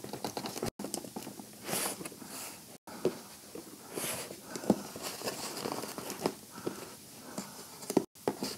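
Cardboard parcel being handled and worked open by hand: faint, irregular scraping and rustling of cardboard and tape, with a few light clicks and knocks.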